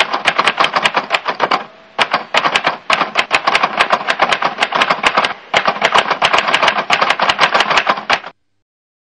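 Typewriter sound effect: rapid keystroke clicks, about seven a second, in three runs broken by short pauses, cutting off suddenly about eight seconds in.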